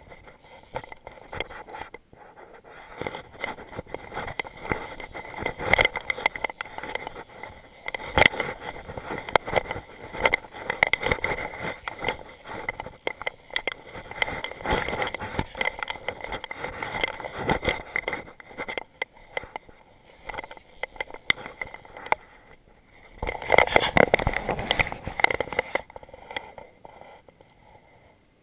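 Fly reel's click drag rattling in irregular bursts while a hooked salmon is played on a fly rod, mixed with scraping. The longest, loudest burst comes about 23 seconds in and lasts a few seconds.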